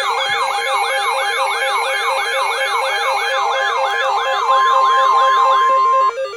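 Several electronic alert sirens sounding together: a fast yelp sweeping up about three times a second over a two-tone hi-lo and a higher wavering wail, signalling an incoming emergency alert. A steady single alert tone joins in at about four and a half seconds, and all of it cuts off suddenly near the end.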